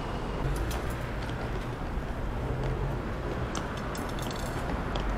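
City street background: a steady low traffic rumble with scattered light clicks and rattles, a cluster of them about half a second in and more near the middle.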